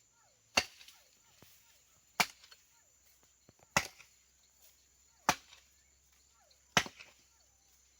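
Firewood being chopped by hand, five even strikes about a second and a half apart.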